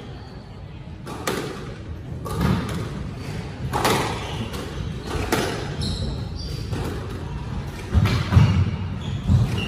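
Squash rally: the ball struck by rackets and smacking off the court walls, a sharp hit every second or so, with heavier thuds near the end. A few brief high squeaks in the middle, typical of court shoes on the wooden floor.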